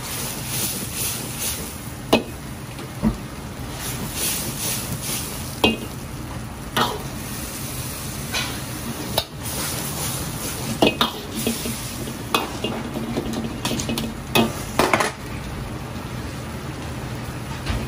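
Chicken wings in beer sauce sizzling and bubbling as the sauce boils down in a wok over a gas burner, with a metal ladle stirring and clinking against the wok a dozen or so times.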